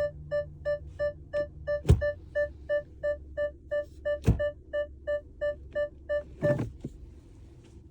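2025 Kia K4's cabin warning chime repeating about three times a second, with two loud thumps in between. The chime stops with a clunk near the end.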